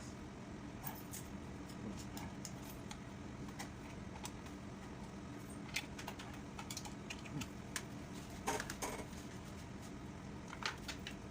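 Scattered, irregular light clicks and taps of small metal parts and hand tools being handled, with a brief cluster of clicks about two-thirds of the way in, over a low steady background hum.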